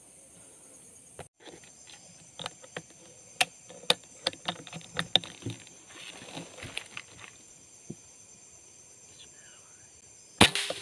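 A single sharp air-rifle shot near the end, after a scatter of clicks and rustles from handling the rifle, over a steady high insect drone.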